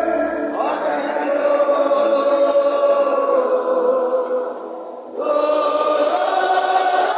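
A large crowd singing a worship song together in long held notes, the voices alone with no deep instrumental bass under them. The singing fades briefly about five seconds in, then comes back at full strength.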